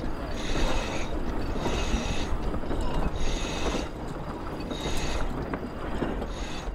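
Crew hoisting a sail on a Clipper 70 yacht: the halyard is hauled in repeated pulls about once a second, rope running through the mast blocks with a ratcheting rasp each pull, over a steady rumble of wind and water.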